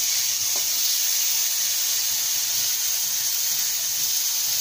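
Cubed eggplant sizzling steadily in hot oil in a kadai, a high, even hiss of frying.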